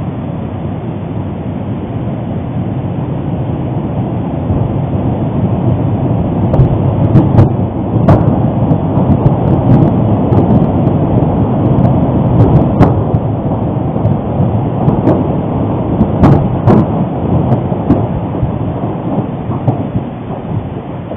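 Thunderous explosion of Popocatépetl volcano: a deep rumble that swells over several seconds, with several sharp cracks in its loudest stretch, then slowly dies away.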